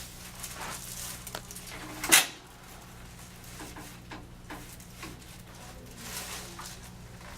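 A single sharp knock about two seconds in, from a chiropractic adjustment on the treatment table, with fainter shuffling of body and table around it over a steady low hum.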